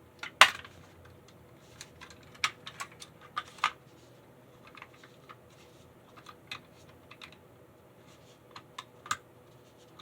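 Irregular plastic clicks and snaps, the sharpest about half a second in, from a model locomotive's body shell being worked loose from its chassis.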